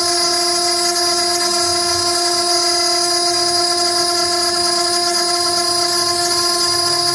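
CNC router spindle milling a circle in an 8 mm aluminium plate: a loud, steady whine with a high hiss from the cut.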